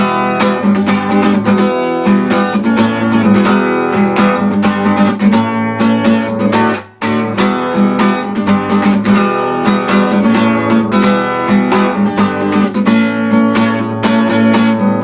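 Acoustic guitar strumming chords in a steady rhythm, with a momentary break about seven seconds in.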